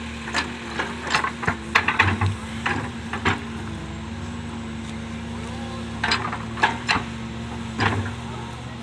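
Doosan DX excavator's diesel engine running steadily under work, with bursts of sharp knocks and clatters: a quick run of them in the first three seconds and a few more between about six and eight seconds in.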